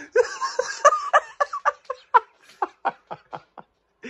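Laughter in quick repeated bursts, breathy and loud at first, then growing weaker and further apart until it dies out a little before the end.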